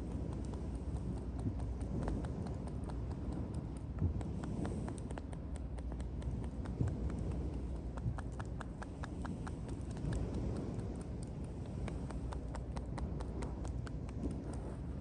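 Tapotement massage: hands striking a person's shoulders and back in quick rhythmic runs of light taps, several a second, over a low steady rumble.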